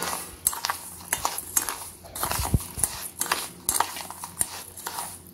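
Metal spoon stirring and scraping a sweet corn, sugar and spice mixture in a stainless steel bowl: repeated clinks and scrapes, about two a second.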